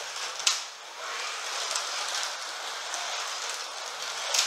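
Carrera Digital 1/32 slot cars running on the plastic track: a steady, even hiss of small electric motors and guide braids on the rails, with a sharp click about half a second in and another near the end.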